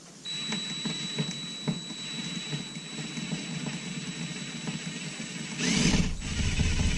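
Electric drill running with a steady high whine, its bit drilling out a metal rivet in a leather belt strap, with irregular ticks as it cuts. About six seconds in there is a brief, louder rush, and the drill then runs heavier to the end.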